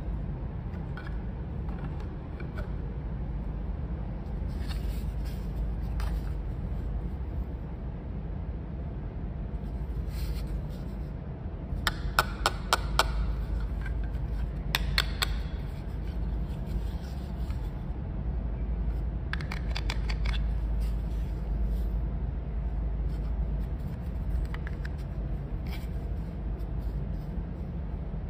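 Small hard plastic toy sweets handled and tapped together, giving scattered sharp clicks, with a quick run of several near the middle. A steady low hum lies underneath.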